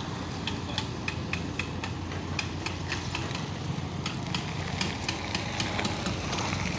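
Steady low rumble of an idling engine, with many short, sharp high clicks at irregular intervals.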